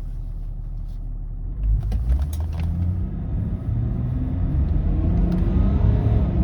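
BMW E39 530d's straight-six turbodiesel launching at full throttle: a low rumble, then about one and a half seconds in the engine note jumps, with a few sharp clicks, and climbs steadily in pitch as the car accelerates hard.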